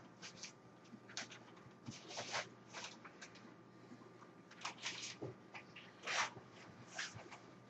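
Nylon diffuser fabric of a softbox rustling and scraping in short, irregular bursts as it is handled and fitted over the front of the light.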